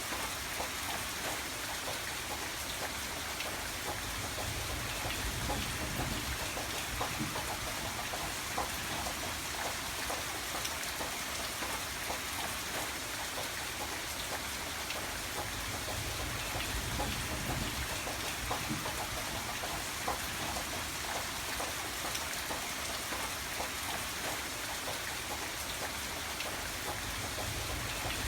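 Steady rain falling, a continuous hiss with many small drops tapping on a surface.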